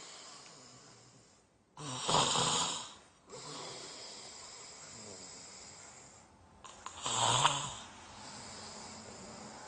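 A sleeping man snoring: two loud snores about five seconds apart, each lasting just over a second, over a steady hiss.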